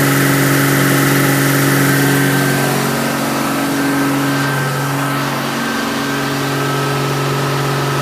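Chevy 4.1 litre inline-six engine running steadily at about 2150 RPM on wood gas from a gasifier, driving an alternator.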